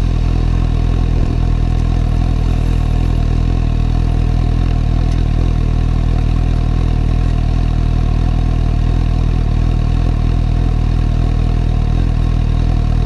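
Suzuki GSR750's inline-four engine idling steadily.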